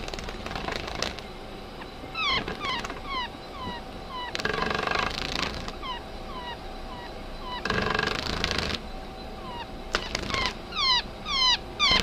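Animal calls: repeated short squeaky calls, each falling in pitch, coming in quick runs that grow louder and faster near the end. Twice, for about a second each, a burst of rough noise cuts in.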